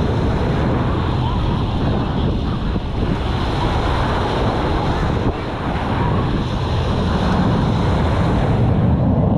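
Steady wind buffeting the microphone over the wash of surf breaking on the beach.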